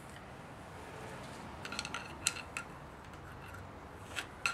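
Light metallic clicks and clinks of hand tools working on the engine's cylinder head as string is pushed down into a cylinder, in a cluster about two seconds in and again near the end.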